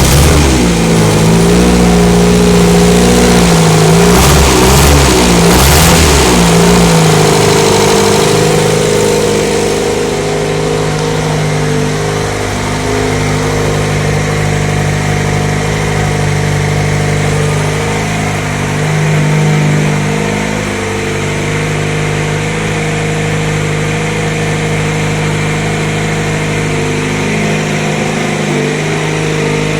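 Reliant Regal van engine running. It is blipped a few times about four to six seconds in, then settles to a steady idle.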